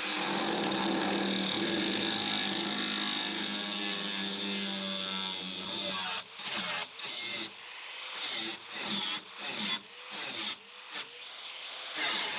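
A power tool working steel sheet metal runs steadily for about six seconds, its pitch sagging slightly under load, then stops. It is followed by a run of rhythmic scraping strokes on the metal, roughly two a second.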